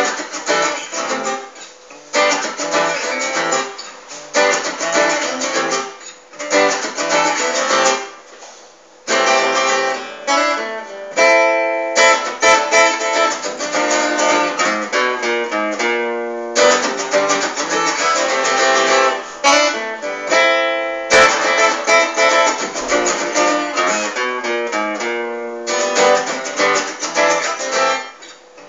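Acoustic guitar played solo without vocals, strummed chords in short phrases with brief breaks between them, turning to single picked notes about halfway through before the strumming returns.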